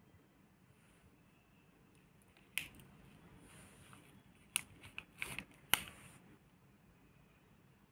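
Crinkling and clicking of a small plastic jewellery pouch being picked up and handled: a sharp crinkle about two and a half seconds in, then a quick run of crinkles and clicks around five to six seconds.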